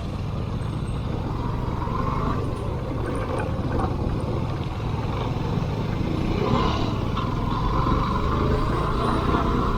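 Motorcycle engine running steadily while riding an off-road dirt trail, a continuous low rumble.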